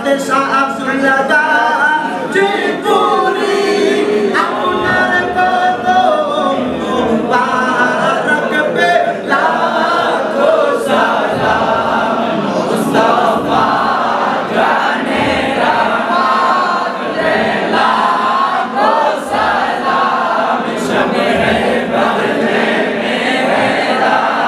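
A group of men singing a Bengali devotional song in praise of the Prophet (a naat), with a young lead voice and the others singing along, without pause.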